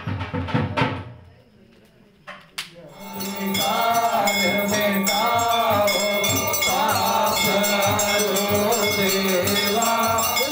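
Devotional chanting of a mantra with a steady beat. After a few rhythmic beats and a short lull, a sung melodic line over a held low drone comes in about three seconds in and carries on steadily.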